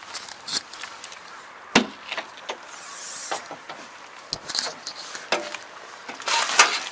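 Irregular knocks, clicks and handling rustles of someone climbing the steps into a parked tractor's cab through its open door. A sharp knock comes about two seconds in and a louder clatter near the end.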